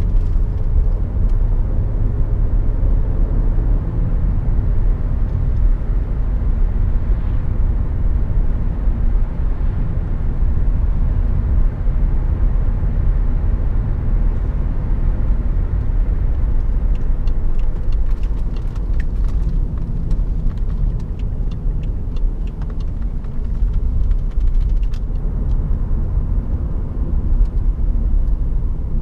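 Inside the cabin of a 2012 BMW 535i (F10), its turbocharged 3.0-litre straight-six cruising with a steady low engine and road rumble. Faint scattered clicks come in over the second half.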